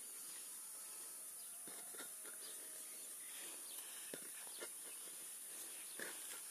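Faint outdoor ambience with a steady high hiss, and a few soft thuds scattered through from a barefoot child dribbling a small plastic ball on grass.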